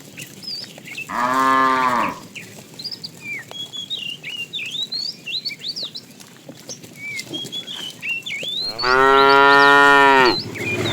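Cows mooing twice: a short moo about a second in, then a longer, louder moo near the end. Short high chirps sound faintly in between.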